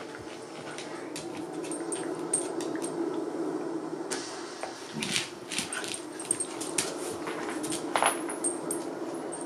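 A shiba inu and a bull mastiff play-fight over a rope toy with steady low whining vocal noises, and there are many sharp clicks and jingles from their metal chain collars. The loudest clicks come about five and eight seconds in.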